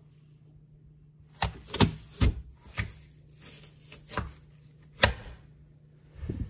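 An apple slicer-corer pressed down through a whole apple: a run of sharp crunches and cracks as the blades split the fruit into wedges, starting about a second and a half in, followed by a duller thump near the end as the slicer reaches the bottom.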